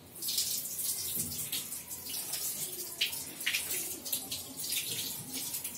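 Kitchen tap running, its stream splashing over a mango held under it and into the sink; the water noise comes on suddenly at the start and stays uneven as the fruit is turned in the stream.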